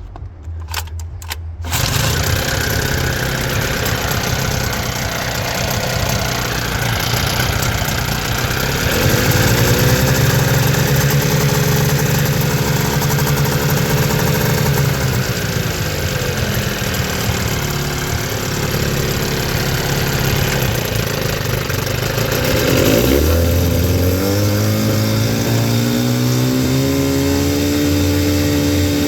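1997 Johnson 9.9 hp two-stroke outboard motor running well after a carburettor rebuild. It picks up about two seconds in, is throttled up around nine seconds in, eases back, and revs up again and holds near the end.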